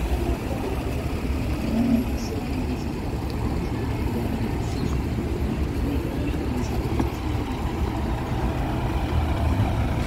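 Street traffic: cars passing on a busy road, a steady noise of engines and tyres.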